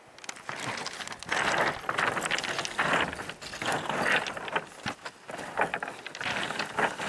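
Hiking boots stepping over loose boulders and stones, each step a rough crunch with sharp clicks of rock on rock, at an uneven pace of about one or two steps a second.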